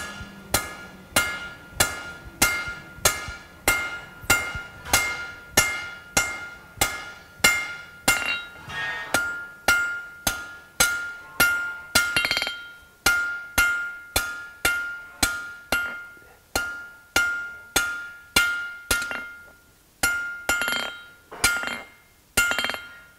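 A 3-pound steel cross-peen hammer, forged from train rail, striking hot round bar on an anvil at about two blows a second while drawing out a point. Each blow rings with a clear high tone.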